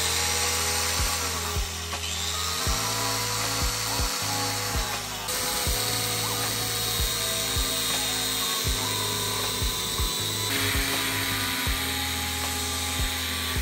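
Angle grinder running with a sandpaper disc on a compact-disc backing, sanding a wooden bar. Its steady whine sags in pitch and recovers several times as the disc is pressed into the wood.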